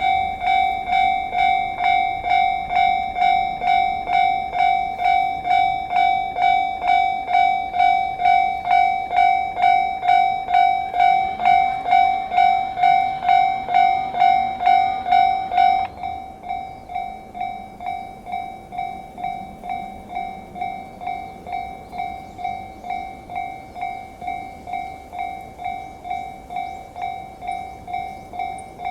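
Japanese railway level-crossing warning bell ringing with a steady electronic ding, about two strikes a second. About 16 s in it drops to a noticeably quieter level and keeps ringing. The bell warns that a train is approaching the crossing.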